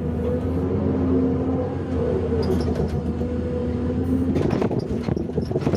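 Hyundai R480LC-9S 48-ton excavator running while loading limestone: a steady low diesel drone with a wavering hydraulic whine, and a clatter of knocks in the last second and a half.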